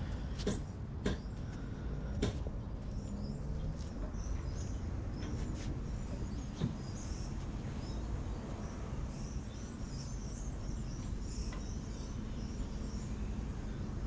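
Outdoor backyard ambience: small birds chirping, more often in the second half, over a steady low rumble. There are a few sharp clicks in the first few seconds.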